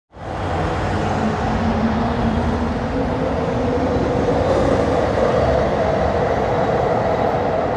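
Train running on rails: a steady, loud rumbling noise with a sustained droning tone in it, cutting in abruptly.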